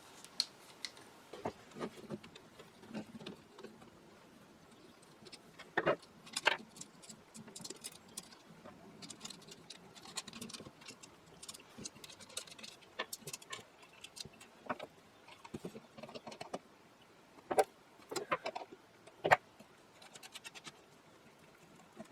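Hands taking apart an antique radio variocoupler: irregular light clicks, taps and rattles of small parts, with a few sharper knocks.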